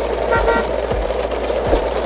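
Plastic toy dump trucks towed in a chain over gravel, their wheels crunching and rattling on the stones with irregular bumps.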